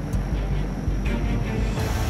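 Dramatic background music over the steady low drone of a Lockheed Electra's turboprop engines running.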